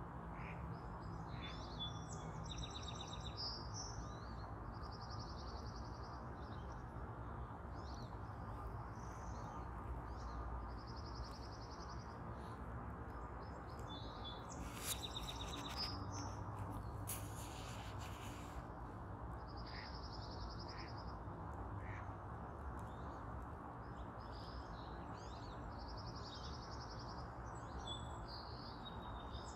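Birds singing: short high trills repeated every few seconds over a steady low background hum. A couple of brief hissing noises come in about halfway through.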